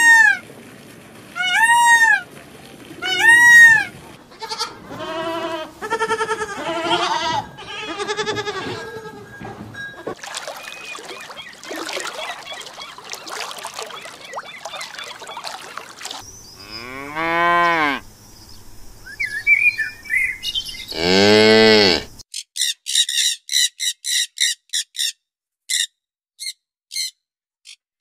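A sequence of different animal calls cut one after another. It opens with loud, arched, rise-and-fall peacock calls, repeated about every second and a half. Later come a noisy stretch, two long calls falling steeply in pitch about two-thirds of the way through, and a run of quick high chirps near the end.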